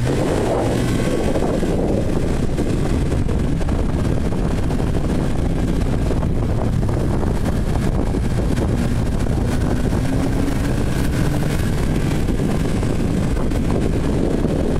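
Arctic Cat CrossCountry 9000 Turbo snowmobile under way, its turbocharged four-stroke engine running steadily with wind rushing over the microphone.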